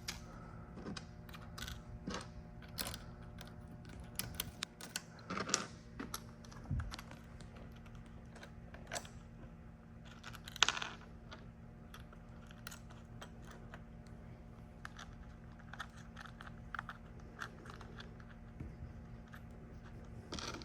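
Scattered small clicks and taps of hands handling hardware and starting nuts onto the 1/4-20 mounting screws of an outrigger base, with a louder knock about eleven seconds in, over a faint steady low hum.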